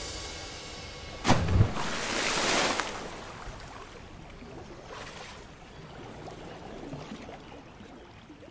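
Sound effect of a heavy splash into water about a second in, followed by a rush of water and a wash of waves that fades low.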